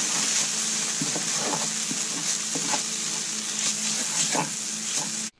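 Onions, grated garlic, ginger and turmeric sizzling in oil in a large pan while a wooden spoon stirs and scrapes through them. The sound cuts off suddenly near the end.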